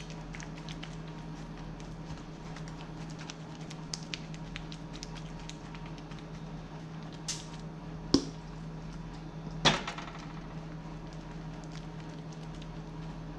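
A metal serving spoon scraping and tapping against a metal baking pan as a soft bread mixture is spread and pressed down, with a few sharper knocks about eight and ten seconds in. A steady low hum runs underneath.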